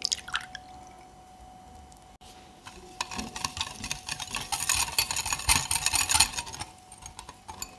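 A quick splash of water poured into a glass bowl of soy sauce mixture, then a wire balloon whisk stirring the thin sauce: fast clicking and rattling of the wire tines against the glass bowl, loudest in the middle and dying away just before the end.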